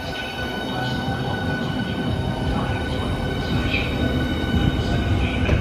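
Southeastern Highspeed Class 395 electric multiple unit moving slowly past along the platform. Its traction equipment gives a steady high whine over the low rumble of the wheels on the rails.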